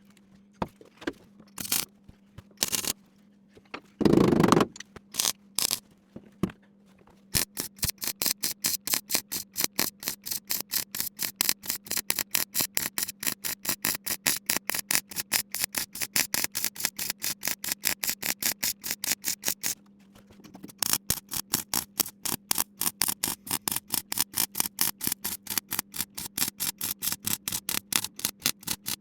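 MIG welder laying a weld in short pulses: a few separate tacks and one longer burst at first, then an even run of about five pulses a second with one brief pause, over a steady hum. It is stitching together three layered steel panels while running on a small emergency supply of shielding gas.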